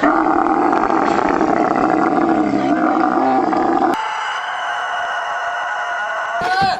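Two animal cries, one after the other: a long, harsh drawn-out call lasting about four seconds, then, after a cut, a steady high-pitched cry.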